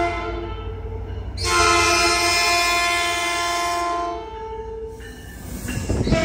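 Metrolink diesel locomotive's multi-tone air horn: one blast ending about half a second in, then a long blast of about three seconds. Near the end the locomotive passes close with a loud low rumble of engine and wheels.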